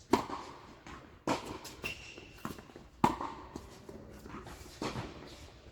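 Tennis ball struck back and forth with rackets in a rally: sharp hits about every one and a half to two seconds, with softer bounces between them.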